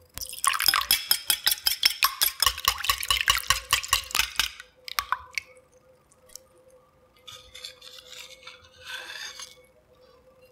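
Raw eggs being beaten in a ceramic bowl: a fast run of sharp clicks, about seven a second, as the utensil strikes the bowl for about four seconds. Later, milk pours into the beaten eggs with a soft splashing.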